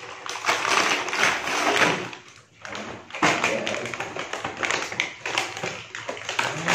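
Plastic blister packaging of a toy construction set being handled and pulled open: crinkling plastic with taps and knocks on the pack and its cardboard backing, briefly pausing about two and a half seconds in.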